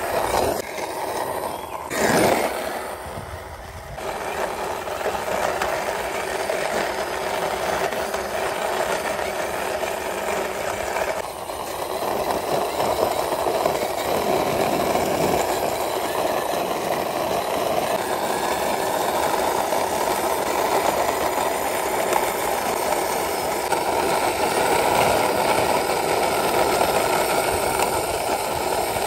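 Plastic wheels of a toy police SUV rolling along a rough concrete wall as it is pushed by hand, a continuous rattling, grinding rumble, with a sharp knock about two seconds in.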